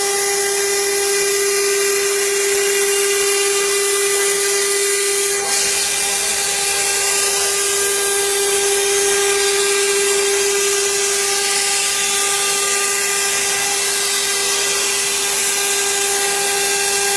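CNC router spindle running at high speed as its bit engraves MDF, a steady high whine over a hiss of cutting. The sound dips briefly about five seconds in, then carries on unchanged.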